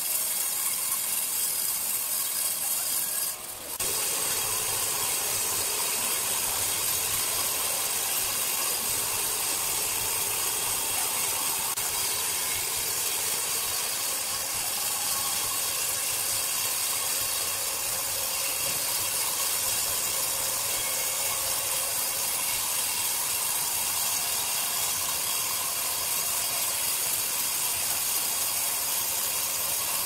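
Horizontal band sawmill ripping lengthwise through a large squared log: a steady, hissing cut of the blade in the wood over the running machine. The sound briefly drops out about three and a half seconds in.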